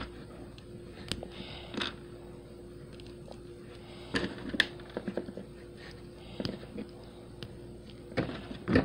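Small plastic clicks and taps of LEGO minifigure pieces being handled and snapped together, scattered and irregular over a faint steady hum, with louder handling noise near the end.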